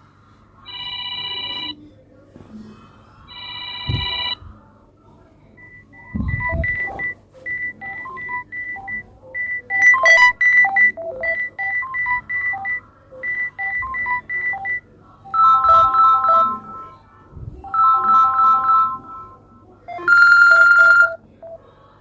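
Samsung Galaxy A12 ringtones playing through the phone's speaker: several short electronic melodies and chimes in turn, with brief gaps between them. A quick run of high beeping notes fills the middle, and short bright chords come near the start and near the end.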